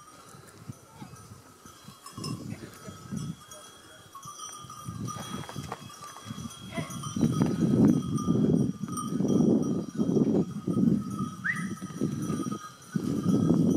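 Goat bells clinking among a herd of goats. From about five seconds in, a loud low rumble comes and goes over them.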